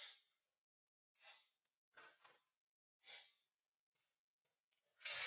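Near silence broken by about five short, soft breath-like puffs, two of them close together about two seconds in and the loudest near the end.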